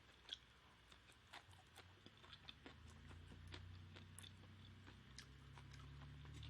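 Faint chewing: a person eating, with small scattered mouth clicks and a soft low chewing sound that builds from about halfway in.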